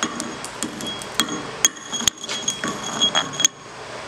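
Chipping hammer striking the fresh dual-shield weld on a steel reamer, knocking off the flux slag after a weld pass: about a dozen quick, irregular metallic strikes, each ringing briefly and high.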